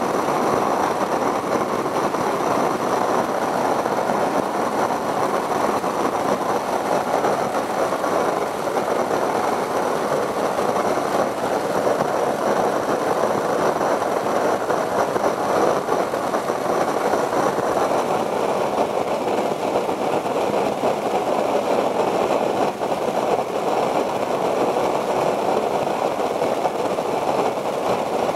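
Homemade copper coil alcohol jet stove burning at full output, a steady, even roar of its vapour jets, still well fuelled.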